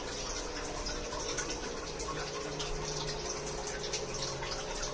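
Water bubbling and trickling in aquarium tanks, a busy patter of small drips and splashes, with a faint steady hum underneath.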